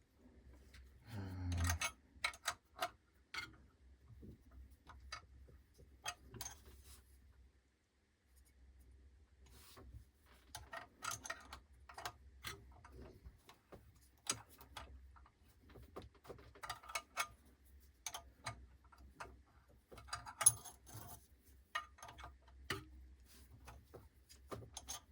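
Irregular light clicks and small metallic knocks of hand tools and loose parts being handled while a mini bench grinder is taken apart, with one sharper knock near the end.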